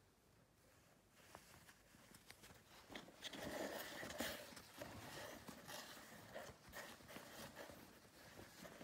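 Soft rustling of thick thermal lycra bib shorts and their packaging being handled and pulled from a cardboard box, with small clicks and crinkles. It starts about three seconds in, after near silence.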